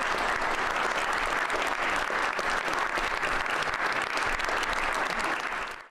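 Audience applauding steadily, cutting off abruptly just before the end.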